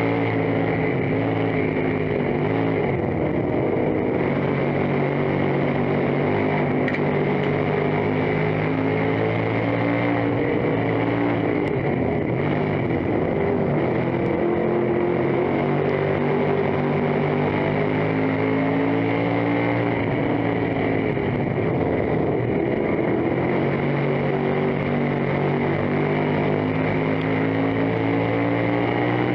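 Dirt-track stock car's race engine heard from inside the cockpit under racing load, its note dropping and then climbing again about every nine or ten seconds as the car eases for the turns and accelerates down the straights.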